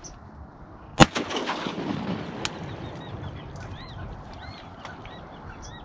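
A single shotgun blast about a second in, fired at a duck on the water, rolling away in a long echo across the open marsh. A few faint high chirps follow.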